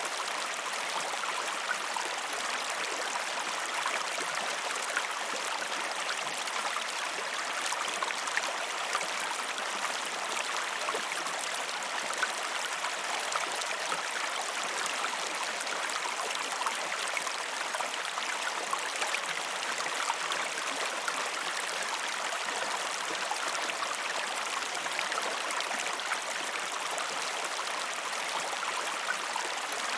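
River water flowing steadily: a constant rushing hiss with many small splashes throughout.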